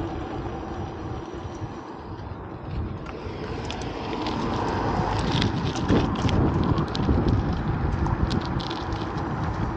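Street noise: vehicle traffic rumbling, with wind buffeting the microphone and scattered small clicks.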